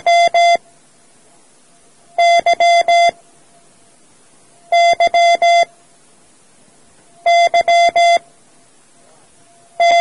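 Morse code letter Y (dah-dit-dah-dah) sent as an electronic code-practice tone, the same four-beep group repeated about every two and a half seconds.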